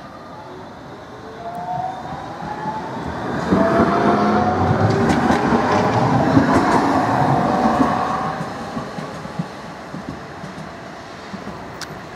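Bombardier CR4000 tram passing close by on its rails: an electric motor whine that climbs slightly in pitch over the rumble of the wheels. It grows loud for a few seconds in the middle, then fades away, with a few sharp clicks from the wheels.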